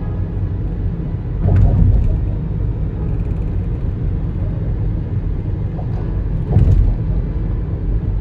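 Steady low rumble that swells louder twice, briefly, about a second and a half in and again about six and a half seconds in.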